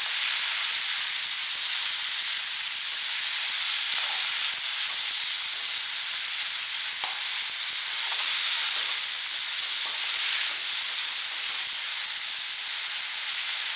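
Chopped tomatoes frying in oil in a kadai, making a steady sizzle, with a few light scrapes as a spatula stirs them.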